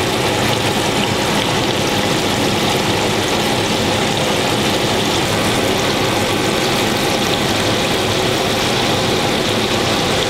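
Chicken pieces deep-frying in hot oil in a cast-iron skillet: a steady, dense sizzle of bubbling grease, with more floured pieces going into the oil partway through.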